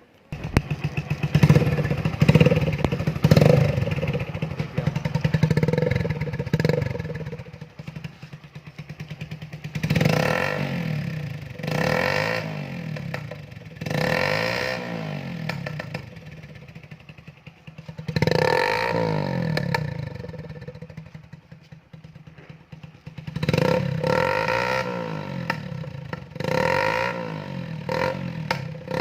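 Bajaj Platina motorcycle's single-cylinder engine fitted with a Bajaj Pulsar silencer, starting up suddenly about half a second in. It is then revved again and again, each throttle blip rising and falling in pitch, with idling between.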